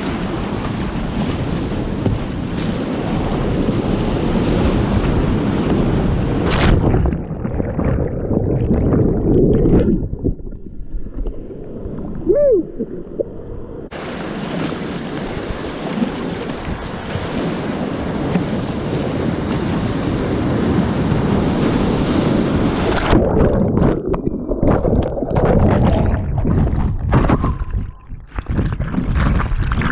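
Rushing whitewater and paddle splashes heard from a kayaker's head-mounted camera while running a rapid. The sound turns muffled about seven seconds in and again from about 23 seconds in, as the camera is submerged, with knocks and gurgles of water around the microphone.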